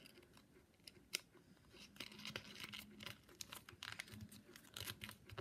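Faint crinkling and crackling of a folded sheet of white paper as its flaps are tucked into place, with a sharper crackle about a second in and a run of small crackles in the second half.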